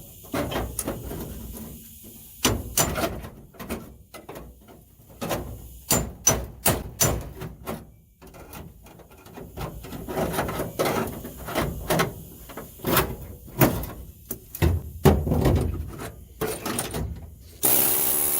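Irregular hammer blows and metal clanks on the rusted torsion bar bracket of a car as it is knocked loose, some strikes much louder than others. A steady hiss starts shortly before the end.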